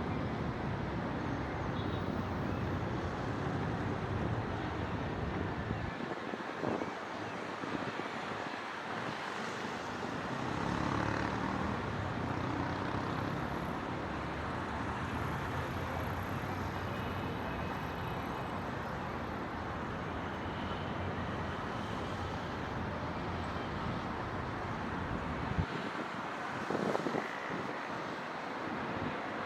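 City traffic noise: a steady wash of road traffic, with a few brief faint sounds standing out now and then.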